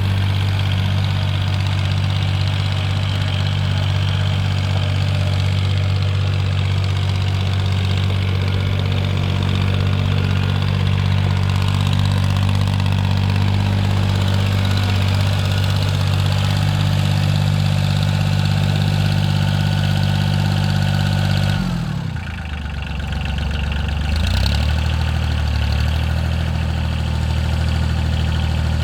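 Kubota farm tractor's diesel engine running steadily. Near the end its speed drops and the sound dips, then it picks back up a couple of seconds later and runs steadily again.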